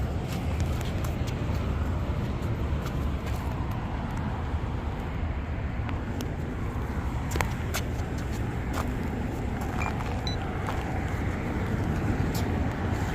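Steady road traffic noise from passing cars, with a few faint sharp clicks here and there.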